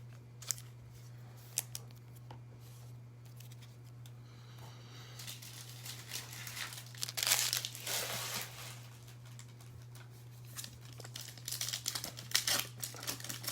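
Plastic wrapper of a trading card pack being torn open and crinkled, in bursts starting about five seconds in and again near the end. A steady low hum runs underneath.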